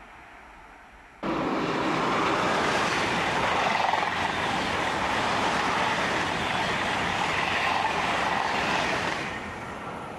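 Double-deck TGV Duplex high-speed train passing close at line speed: a loud, steady rush of wheel and air noise that starts abruptly about a second in and eases off near the end as the last cars go by. Before it, a fainter noise from a distant approaching train.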